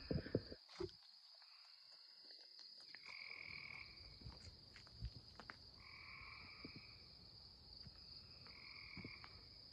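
Frogs calling faintly: three separate calls, each under a second long, a couple of seconds apart.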